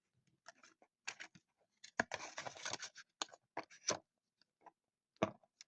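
Hands handling a small fidget toy and its wrapping: scattered light taps and clicks, with a short stretch of crinkly rustling about two seconds in and a sharper tap near the end.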